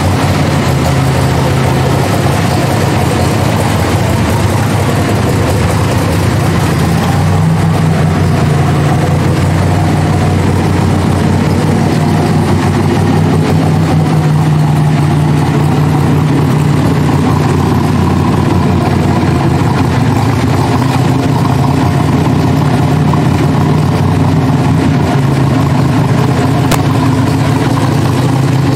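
A C2 Corvette Sting Ray's V8 engine idling steadily.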